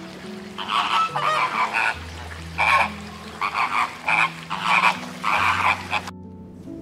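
A flock of flamingos calling: many quick, goose-like honks and croaking chatter, stopping suddenly about six seconds in. Low held notes of background music run underneath.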